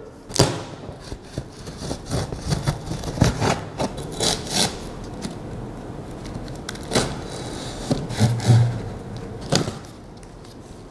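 A knife slitting the packing tape on a large cardboard box, with cardboard scraping and rubbing and several sharp knocks. Near the end the box flaps are pulled open.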